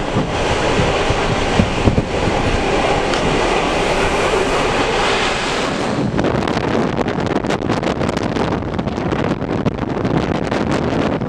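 Train running at speed, heard from an open carriage window with wind on the microphone. About six seconds in, the steady rush turns into a rapid, irregular crackle over the running noise.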